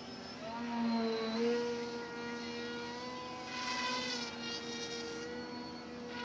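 Electric motor and propeller of a Joysway Dragonfly RC flying boat, a steady whine that rises slightly in pitch about a second in, then wavers and swells as the model flies overhead.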